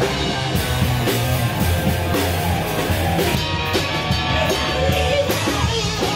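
Rock music with drums, electric guitar and singing, loud and continuous.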